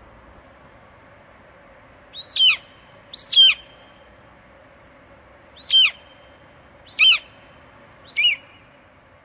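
Eagle screaming: five separate harsh calls, each dropping sharply in pitch, over a faint steady background hiss.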